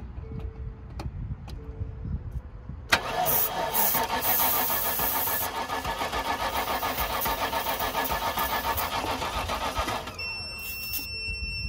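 A 1999 Land Rover Discovery II's petrol V8 being cranked over by the starter with starting fluid sprayed into the intake. The cranking starts suddenly about three seconds in and pulses evenly for about seven seconds. The engine never fires: a crank, no start. Near the end a steady electronic warning tone sounds.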